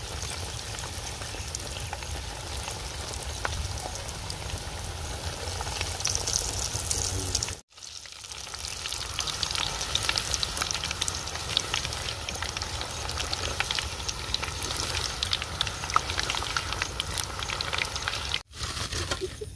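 Breaded fish fingers deep-frying in a kadai of hot oil: a steady, dense sizzle and crackle of bubbling oil. It breaks off briefly twice.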